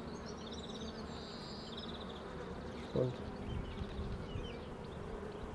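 Honeybees from an open hive buzzing steadily, with a brief louder hum about three seconds in.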